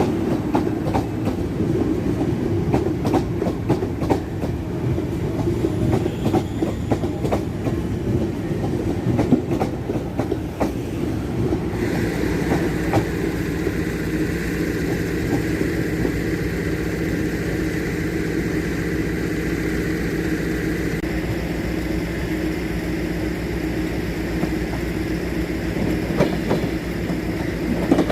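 Train rolling on the rails: rapid wheel clicks over rail joints for the first twelve seconds, then a steady whine joins in, with part of it dropping out about twenty-one seconds in.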